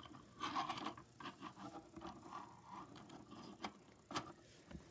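Small plastic toy pieces being handled and slid over a surface: faint scraping and rustling, with two sharp clicks near the end.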